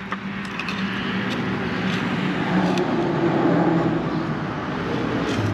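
Steady motor-vehicle engine and road noise that swells slightly in the middle, with a few faint clicks of a metal pick working against plastic trim.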